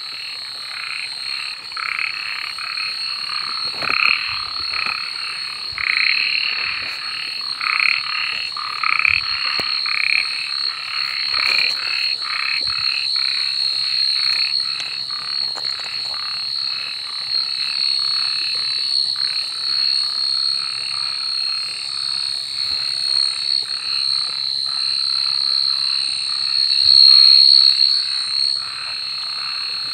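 Many frogs croaking at night, a dense chorus of short calls repeating over and over, over a steady high-pitched drone that swells briefly near the end.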